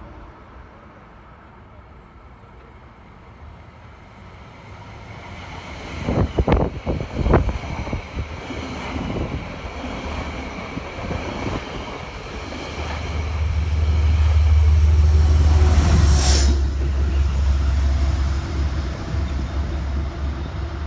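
Metro-North P32 locomotive and Shoreliner coaches passing through a station close by. The train builds from quiet to a sharp clatter of wheel strikes about six seconds in as the first cars reach, then a heavy low rumble that is loudest about two-thirds through and fades only slightly.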